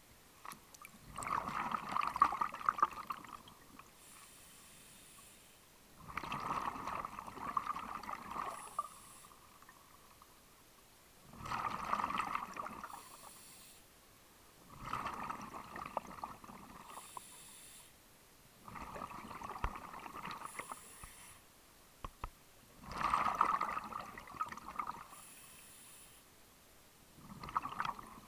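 Scuba diver breathing through a regulator underwater: a gurgling rush of exhaled bubbles seven times, about every four to five seconds, each followed by a faint hiss of the next inhale.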